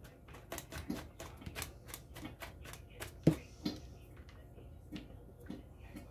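Knife chopping rapidly on a cutting board while dicing, an irregular run of sharp knocks about four or five a second, with one louder chop about three seconds in and the chops thinning out near the end.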